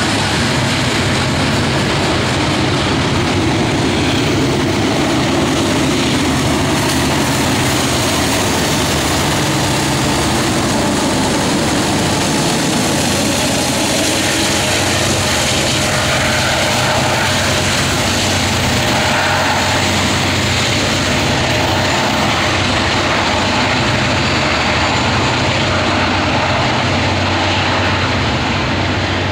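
Coal train cars rolling past, then the train's two rear distributed-power diesel locomotives going by, their engines running with a steady low drone that carries on undiminished as the train pulls away.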